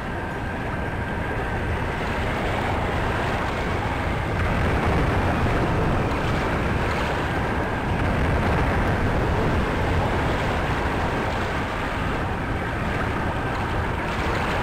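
Steady rushing noise of sea and wind, with no distinct events.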